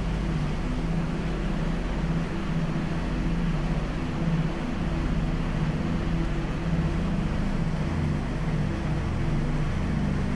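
Steady low engine-like rumble under an even hiss, with no clear beginning or end.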